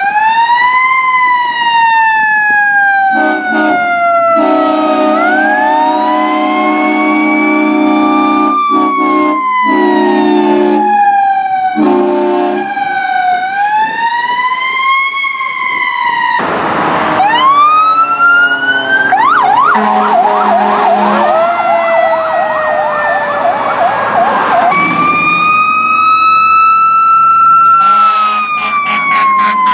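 Fire truck sirens wailing, sweeping slowly up and down in pitch, with long steady air horn blasts through roughly the first ten seconds and a fast yelp partway through. Several passing trucks follow one another with abrupt cuts.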